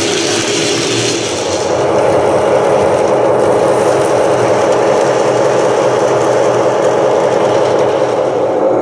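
Simulated diesel locomotive engine sound from a Bluerail Bluetooth sound decoder, running steadily through a small Maxxter Bluetooth speaker, getting louder about a second and a half in.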